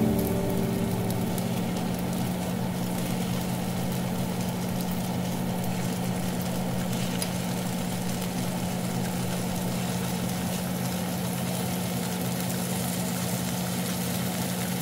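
Tofu slices pan-frying in oil in a nonstick pan: a soft, even sizzle over a steady low hum, with a few light ticks as metal tongs turn the pieces.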